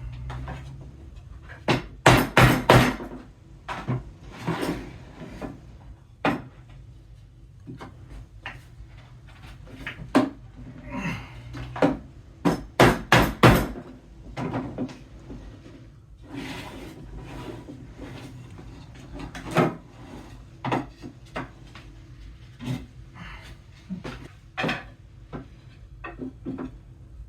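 Hammer blows knocking tight-fitting IKEA IVAR shelf slats into the wooden side rails. Irregular clusters of hard wooden knocks, often several quick blows in a row, with pauses between.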